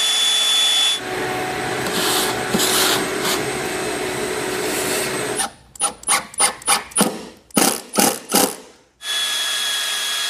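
A power drill working into a maple countertop. It begins with a steady high whine, then grinds through the wood for about four seconds, then gives about nine short bursts, and near the end runs with a steady whine again.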